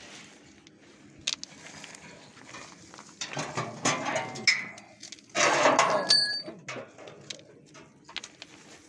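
Irregular clattering and clinking knocks of areca nuts against the metal of a peeling machine, with a denser burst of rattling about five and a half to six and a half seconds in that carries a brief metallic ring.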